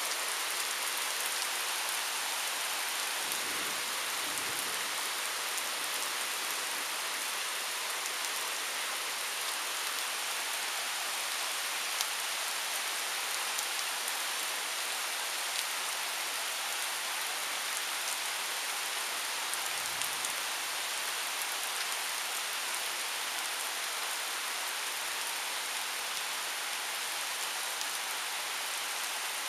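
Heavy thunderstorm rain pouring onto pavement and lawn: a steady hiss, with a few sharper drop hits standing out.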